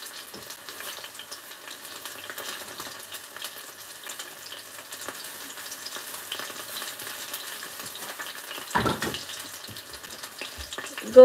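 Bite-size chicken thigh pieces shallow-frying in a small amount of oil in a pan: a steady sizzle with fine crackles. A brief louder noise comes about nine seconds in.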